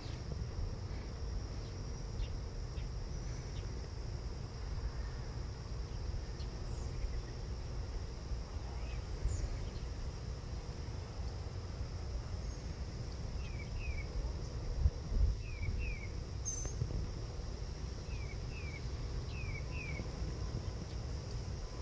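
Insects trilling steadily in one high unbroken tone over a low rumble. A bird chirps in quick pairs of short falling notes, four pairs in the second half.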